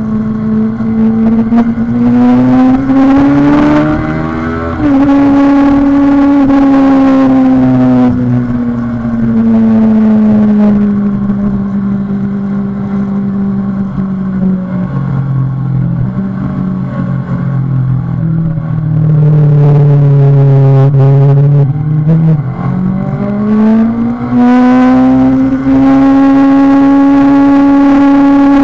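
Kawasaki Ninja 636 sport bike's inline-four engine running under way. The revs climb, dip briefly about five seconds in, then fall slowly for some fifteen seconds, and climb again from about twenty-two seconds to hold high near the end.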